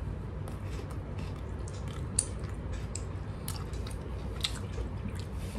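Someone eating chicken tandoori: soft, wet chewing and mouth clicks, scattered and irregular, over a steady low hum.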